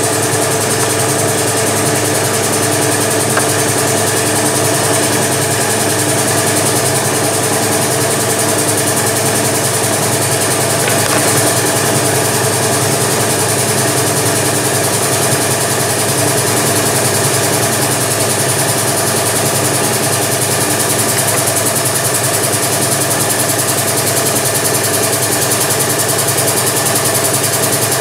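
Steady hum of an electric motor running at constant speed, even and unchanging throughout.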